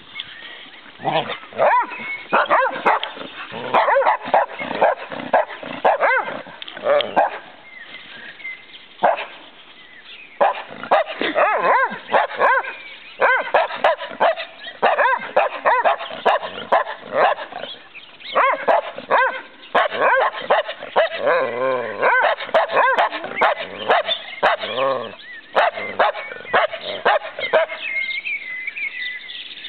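Australian shepherds barking and yipping in rough play-fighting, many short barks in quick runs with a few brief lulls.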